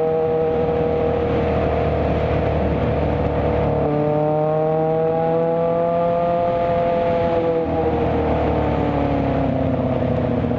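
Kawasaki ZX-6R sport bike engine running under way in traffic. Its pitch dips briefly about four seconds in, rises steadily as the bike accelerates, then falls away over the last few seconds as it eases off.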